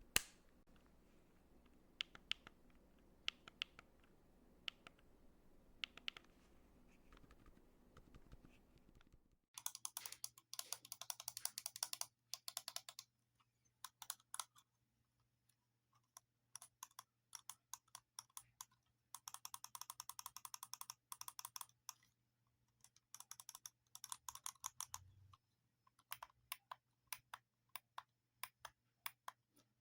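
Buttons being pressed and clicked: a few single clicks about a second apart, then, from about nine seconds in, fast runs of clicking like typing on a keyboard, in bursts with short pauses between them.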